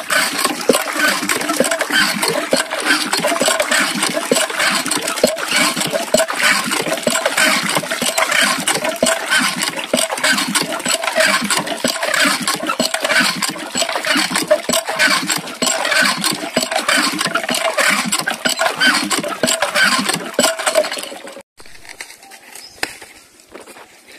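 Water gushing from a hose into a plastic bucket, splashing and churning in the filling bucket. It stops abruptly near the end.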